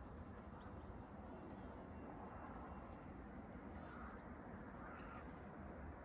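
Quiet outdoor ambience: a steady low rumble with a few faint, short bird chirps scattered through it.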